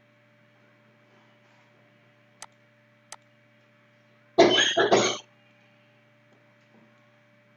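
A person's cough, short and in two quick parts, a little after halfway, the loudest thing here. Before it come two sharp single clicks of a computer mouse, and a steady low electrical hum runs underneath.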